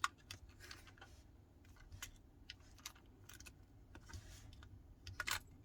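Faint, irregular small clicks and taps of hand tools and small parts against a smartphone's frame during reassembly, with a cluster of sharper clicks near the end.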